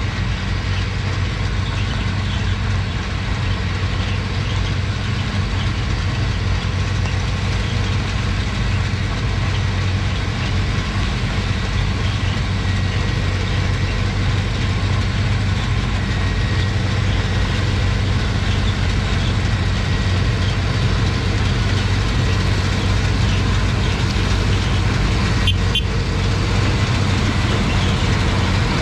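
Heavy diesel engines of a John Deere CH570 sugarcane harvester and a New Holland tractor running steadily under load while cutting and loading cane, a deep even drone with a faint high whine. A few brief clicks come near the end.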